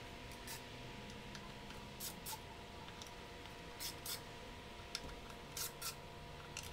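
Faint, scattered clicks and light scrapes of a hand tool turning the screws on a Harley-Davidson derby cover, about eight small ticks over a quiet steady hum.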